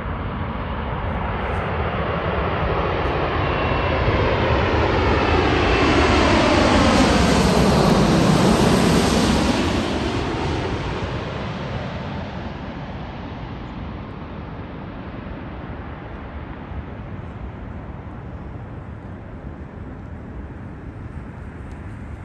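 Boeing 787-8 Dreamliner jet flying past, its engine noise swelling to its loudest about eight seconds in with a sweeping whoosh as it goes by, then fading to a low steady rumble.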